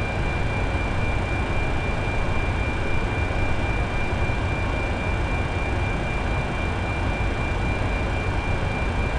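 Steady cabin noise inside the NASA 905 Boeing 747 Shuttle Carrier Aircraft: an unbroken low rumble with a constant high-pitched whine over it.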